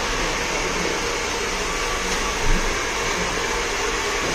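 Hair dryer blowing steadily, with one brief thump a little past halfway.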